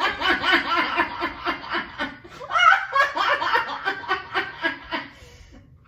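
Young women laughing in quick rhythmic bursts; the laughter breaks off about two seconds in, starts up again, and trails off near the end.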